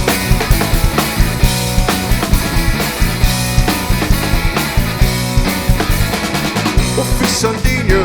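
Rock band playing an instrumental passage: a drum kit beat with kick and snare drums driving under sustained guitar and bass.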